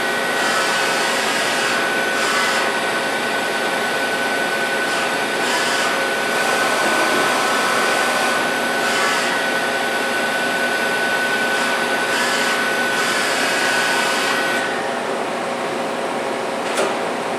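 A Fadal VMC 6030 HT CNC vertical machining center running under power: a steady whine over a hissing, whirring noise, with hissier stretches coming and going. The whine stops about fifteen seconds in, and a single click follows near the end.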